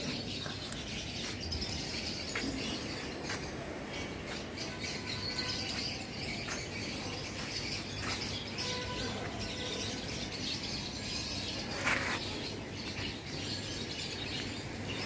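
Outdoor ambience with small birds chirping now and then over a steady background hiss, and one short noise about twelve seconds in.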